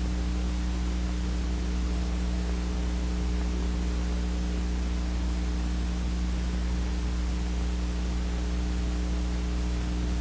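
Steady electrical hum with even hiss: the background noise of an old film soundtrack, with no other sound.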